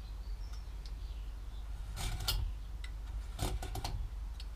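Marking knife scoring the wood along a square, cutting a knife wall to mark a clean cut line: a couple of brief scratching strokes, about two seconds in and again a second and a half later.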